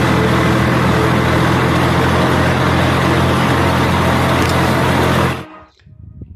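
Tractor's diesel engine running steadily under load while pulling a disc harrow through the soil. It cuts off abruptly about five seconds in.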